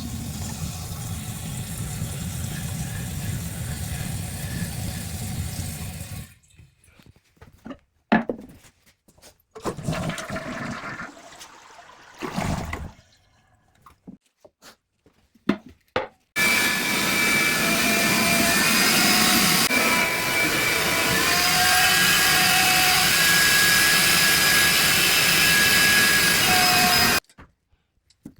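A toilet flushing for about six seconds, then scattered short knocks and clicks, then about ten seconds of loud steady rushing noise with faint whistling tones that cuts off suddenly.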